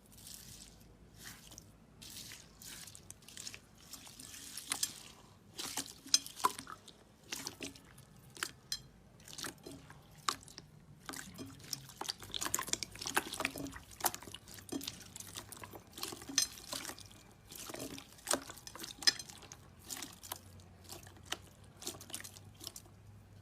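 Slime being squeezed and worked by hand, making many irregular wet clicks and pops.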